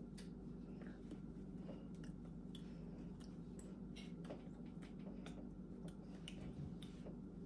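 Faint steady room hum with soft, irregular clicks and ticks from a person signing: hands meeting, skin and sleeves brushing, small mouth sounds.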